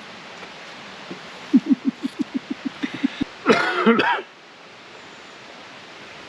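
A person's coughing fit: a quick run of about a dozen short coughs, then one louder, rasping cough about halfway through. It is a lingering cough from a cold that the couple wonder may have been COVID.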